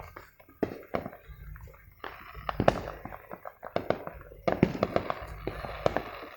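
Consumer fireworks going off in several places at once: a string of sharp pops and bangs, with dense crackling runs about two and a half seconds in and again around five seconds.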